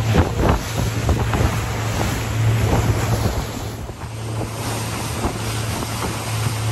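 Motorboat engine running at speed with a steady low drone, water rushing and splashing against the hull, and wind buffeting the microphone.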